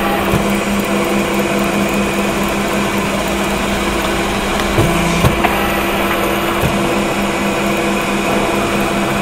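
Riveting machine running with a loud, steady motor hum, with a few sharp metallic knocks from the tool on the sheet metal, two of them close together about halfway through.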